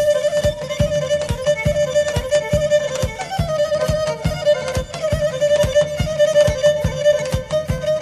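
Instrumental stretch of a Pontic Greek song: a Pontic lyra (kemenche) plays a quick, ornamented bowed melody around one held pitch, over a regular low beat of about three to four strokes a second.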